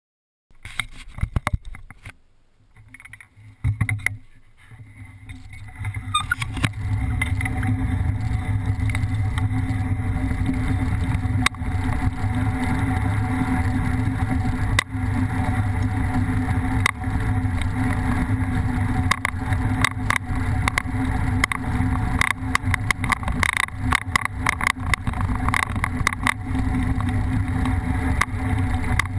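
Kite buggy rolling over hard sand: a steady rumble and rattle from the wheels and frame, with wind on the microphone. A few short knocks come first, and the steady rumble sets in about six seconds in.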